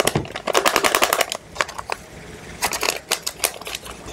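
Foil pouch of chunk light tuna crinkling and crackling as it is squeezed and shaken out over a plastic container, in two spells of rapid crackling.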